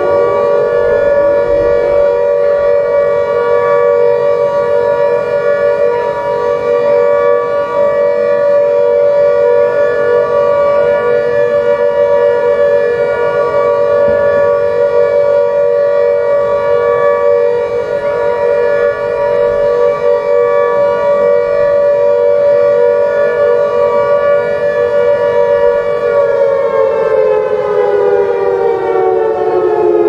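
Emergency alert siren sounding loudly on a steady two-note chord, then sliding down in pitch as it winds down near the end.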